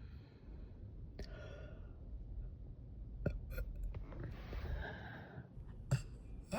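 A girl's soft breathy sighs, one about a second in and a longer one about four seconds in, with a few small clicks between them.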